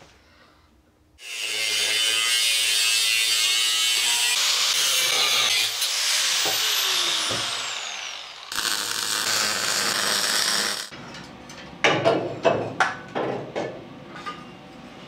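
Angle grinder with a cut-off disc cutting through an exhaust pipe. It grinds steadily for about six seconds, then winds down with a falling whine. A second, shorter cut stops suddenly. A run of sharp knocks follows near the end.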